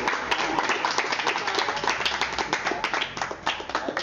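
A small group clapping their hands in applause: dense, uneven handclaps throughout.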